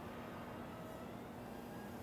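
Steady low hum with a faint hiss: room tone, with no distinct event.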